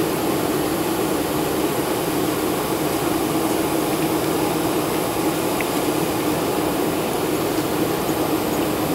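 Steady cabin noise inside a Boeing 747 rolling slowly on the ground: the jet engines' even drone mixed with the rush of the cabin air, with no rise in power.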